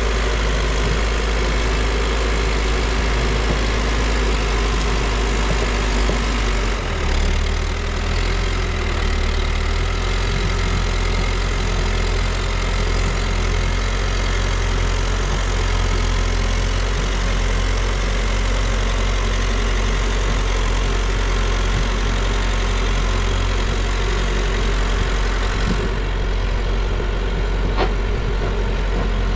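New Holland backhoe loader's diesel engine running steadily, its low note changing about seven seconds in.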